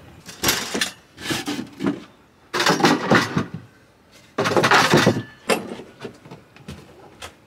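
Knocks, scrapes and rustles of someone moving about and handling things in a sailboat's companionway, with two longer, louder scraping noises about two and a half and four and a half seconds in, then a few light clicks.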